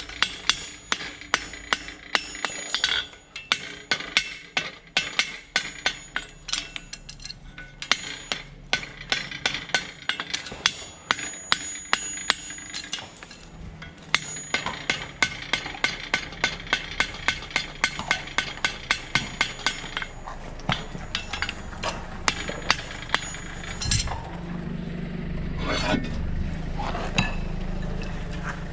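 Farrier's hammer striking metal over and over, in quick runs of sharp blows a few a second with short pauses between runs.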